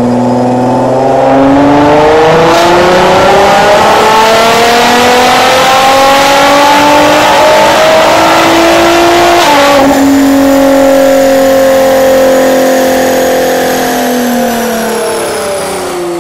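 Nissan GT-R R35's twin-turbo 3.8-litre V6 making a full-throttle pull on an all-wheel-drive chassis dyno. The engine note climbs steadily for about eight seconds, drops abruptly about ten seconds in, then winds down slowly as the car coasts down on the rollers.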